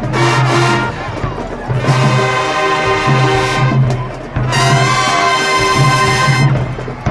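High school marching band playing a brass-heavy tune: loud held chords with sharp, punched entries about two seconds and four and a half seconds in.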